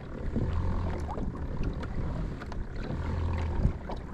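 Water lapping against a kayak's hull, with a low rumble that comes and goes and a few small clicks and knocks.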